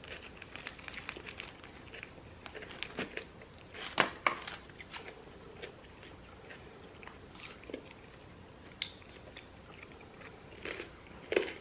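Close-miked chewing and biting of food, with soft crunches and scattered small clicks, and one louder click about four seconds in.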